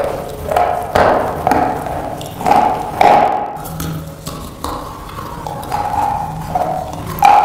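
Slate pencil pieces being bitten and chewed close to a lapel microphone: a run of sharp, brittle crunches, roughly one a second.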